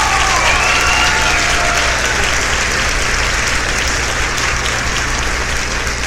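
A crowd applauding, with a few whoops or whistles in the first two seconds that fade into steady clapping.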